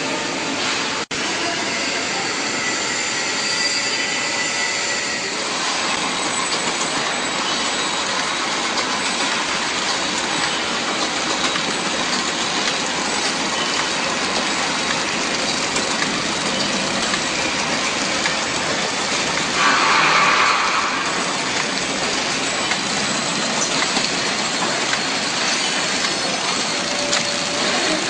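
Microwave popcorn packing machine running steadily: a dense mechanical clatter from its bag-forming and sealing mechanism, with a brief louder noise about twenty seconds in.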